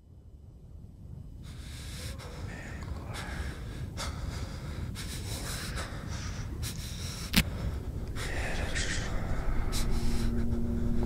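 Horror-film sound design under the opening titles: a low rumble swelling steadily louder, overlaid with irregular bursts of hissing noise and a single sharp click about seven seconds in. Low held notes come in near the end.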